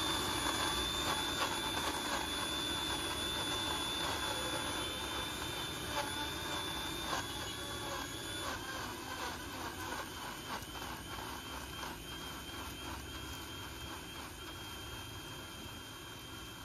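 Electric mixer grinder blending guava pulp with sugar and ice, its motor running with a steady high whine that drops slightly in pitch about halfway through.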